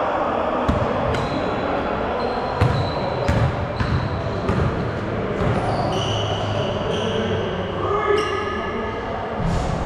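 Basketball bouncing irregularly on a hardwood court during play, with several short high squeaks, mostly in the second half, over a steady background of crowd and player noise.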